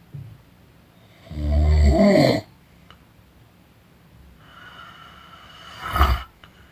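A person snoring: one long, loud snore about a second and a half in, then a softer breath, and a short, sharp snort near the end.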